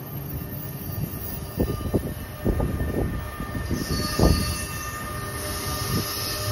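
NJ Transit multilevel coaches rolling past with an ALP-46A electric locomotive, their wheels rumbling and clacking over rail joints in an uneven run of knocks, the loudest about four seconds in. From about four seconds a steady whine and a rising hiss build as the electric locomotive draws near.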